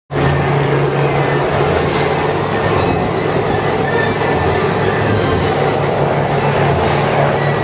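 Steady loud rushing of a fire hose spraying onto a burning fuel fire, over the low drone of running engine equipment.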